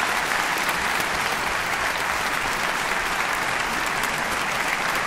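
Concert-hall audience applauding steadily after an operetta duet with orchestra.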